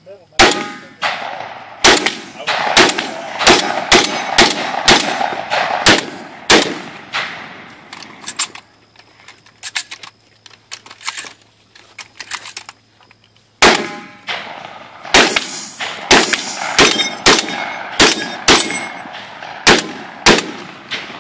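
Remington Versa Max semi-automatic shotgun fired in two fast strings of about a dozen shots each, roughly two or three shots a second. Between them is a pause of about five seconds filled with small clicks as shells are thumbed into the magazine tube for a reload.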